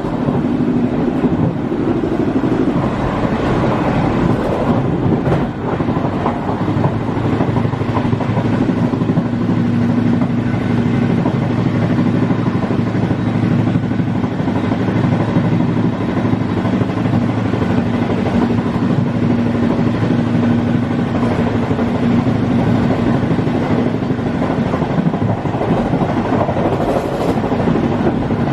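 Running noise of an Intercity passenger coach (Bm235) travelling at speed, heard at the rear end of the train: a steady rumble and rush of wheels on rail with a steady low hum.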